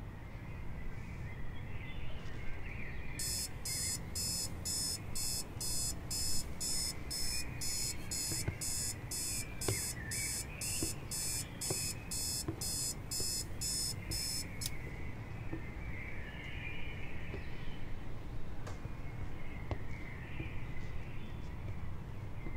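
An electronic alarm beeping, high-pitched at about two beeps a second; it starts about three seconds in and cuts off suddenly after roughly eleven seconds. Faint birdsong runs underneath.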